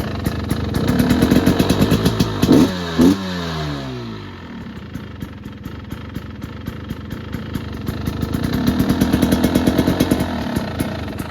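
2022 KTM 300 XCW two-stroke engine running cold with its choppy idle. It takes two quick throttle blips about two and a half seconds in, the revs falling away after each, then settles lower before running up again for a couple of seconds near the end.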